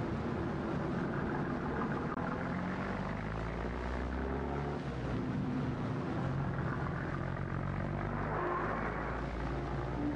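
Dense, low film soundtrack of sustained tones that shift to new pitches every second or two, over steady hiss from a worn 16mm sound track.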